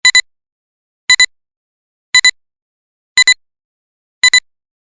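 Electronic beeps in pairs: a short high tone sounded twice in quick succession, repeating about once a second, five times.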